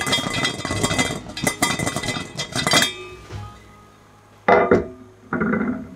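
Kitchenware clattering and clinking for about three seconds, then two short knocks, over soft background music.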